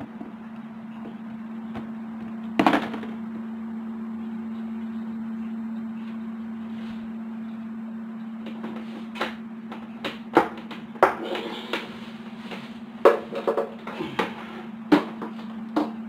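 A flat-screen TV being handled and shifted into place by hand: one loud knock about three seconds in, then a string of knocks and clatters through the second half, over a steady low hum.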